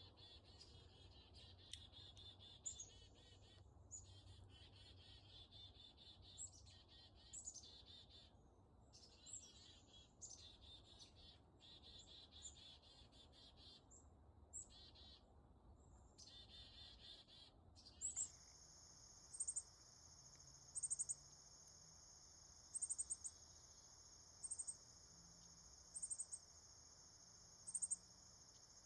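Faint wild songbird song, repeated high-pitched phrases broken by short pauses. About two-thirds of the way through it cuts to a steady high insect trill, such as crickets, with louder chirps about every second and a half.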